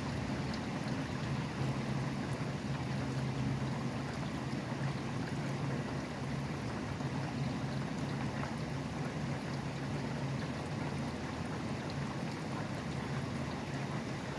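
Steady rain falling, with the low, continuous rumble of highway traffic underneath.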